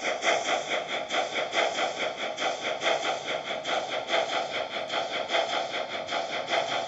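Märklin H0 model train running past with an even rhythmic beat of about four pulses a second over a steady hiss, the sound of the wagons rolling along the model track behind the BR 44 locomotive.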